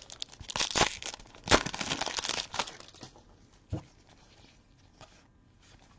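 Foil trading-card pack wrapper being crinkled and torn open, with dense crackling for about three seconds, then a single soft knock.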